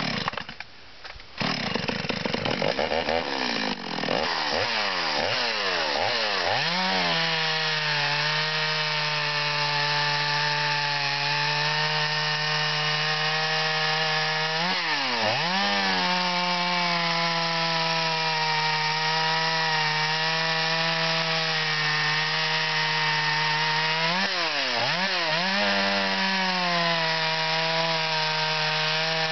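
Stihl 021 two-stroke chainsaw engine starting up and running fast for a few seconds, then dropping to a steady idle. The pitch swings briefly twice, about halfway through and again near the end. It runs smoothly now that a bad gas line has been replaced.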